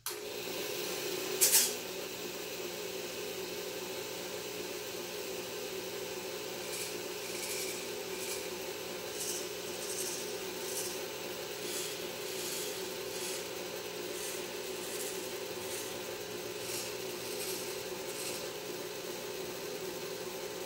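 Steady mechanical hum of a capstan power-assist drive running, with a loud brief burst about a second and a half in. From about seven seconds in come the micro servos of a cable-driven robotic arm, whirring in short high-pitched bursts roughly every three quarters of a second as its joints move.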